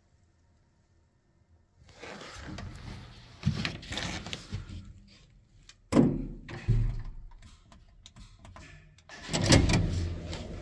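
In an old relay-controlled Leuthold passenger lift, handling noises and knocks are followed about six seconds in by a loud clunk as a floor button is pressed. Near the end the lift's machinery starts with a steady low hum as the car sets off.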